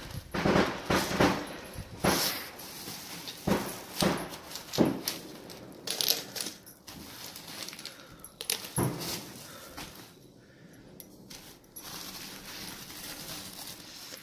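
Sugar batashe being taken from a crinkling plastic bag and set down on a plate of puffed rice: a series of light clicks and small knocks about a second apart, thinning out after six seconds or so.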